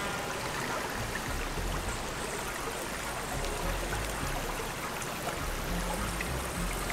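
River water running steadily, a continuous rushing trickle.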